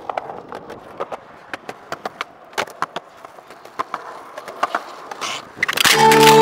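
Skateboard wheels rolling on concrete, with repeated sharp clacks and knocks of the board against the ground. Music with plucked notes starts loudly near the end.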